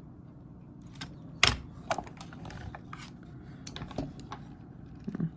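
Scattered light clicks and taps of plastic toy figures being handled, irregular, the sharpest about a second and a half in.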